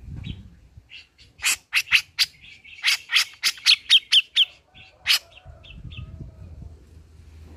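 Cucak jenggot (grey-cheeked bulbul) calling: a fast run of loud, sharp, chattering notes, about three or four a second. The run lasts around four seconds and stops about five seconds in, followed by a low rustling.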